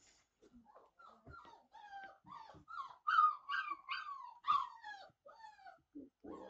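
Four-week-old retriever puppy whining: a run of short, high, falling whines, about two or three a second, loudest in the middle.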